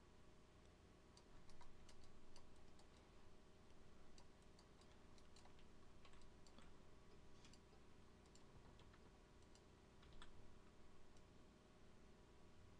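Near silence: room tone with a faint steady hum and scattered faint clicks from a computer mouse and keyboard.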